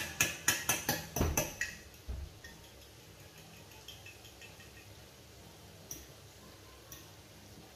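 Fork clinking against a ceramic dish while beating eggs: about five or six quick taps a second for the first two seconds, then only a few faint taps.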